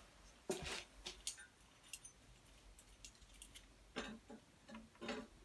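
A few light metallic clinks and knocks, spaced over several seconds, as a carbon exhaust silencer is handled and slipped onto the motorcycle's link pipe.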